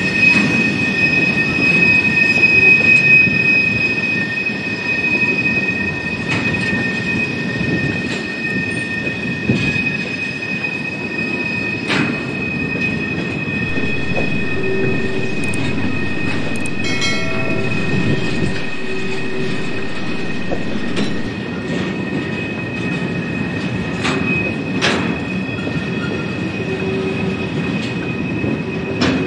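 Freight train of flatcars rolling past, the wheels rumbling on the rails with a steady high-pitched wheel squeal throughout. A few sharp clanks come through, about twelve seconds in and again twice near the end.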